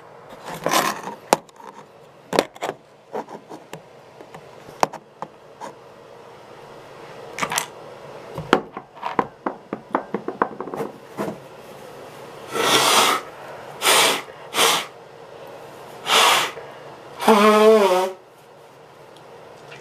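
Small clicks and rubs of handling, then, in the last third, about five short, forceful bursts of air through a person's nose and mouth, the last carrying a wavering voiced tone.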